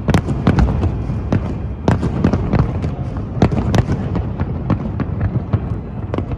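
Fireworks display going off: a rapid, irregular string of sharp bangs and cracks, several a second, over a constant low rumble of distant booms.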